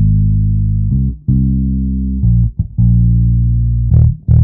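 Outro music carried by a bass guitar: loud, low held notes that change about every second.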